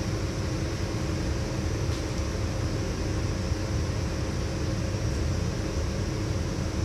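Steady hum of running machinery: a low rumble with a faint constant tone over it.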